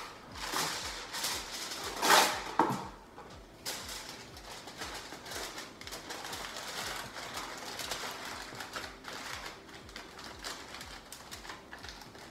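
Aluminium foil pulled and torn from its box, loudest about two seconds in, then crinkling and rustling irregularly as the sheet is folded and crimped around the edge of a baking pan.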